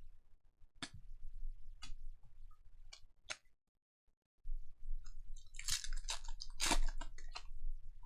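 Trading card packs and cards being handled: a few separate sharp clicks, then from about halfway through a dense crinkling and rustling of foil pack wrappers and cards.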